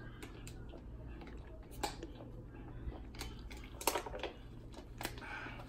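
A man drinking from a plastic water bottle: soft gulps with scattered faint clicks and crinkles of the thin plastic, strongest about two, four and five seconds in.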